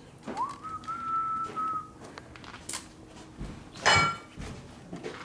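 A person whistles one note, sliding up and held for about a second and a half. About four seconds in comes a sharp metallic clank that rings briefly, among a few lighter clicks of shop handling.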